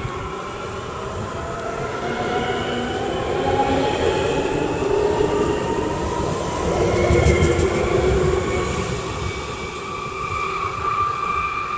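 Stuttgart S-Bahn electric multiple unit accelerating out of the station: its electric traction motors whine in several tones that rise steadily in pitch, over the rumble of wheels on the rails. The rumble is loudest about seven seconds in.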